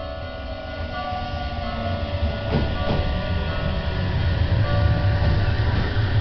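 Aichi Loop Railway electric commuter train pulling into the station, its running noise and wheel rumble growing steadily louder as it draws alongside the platform.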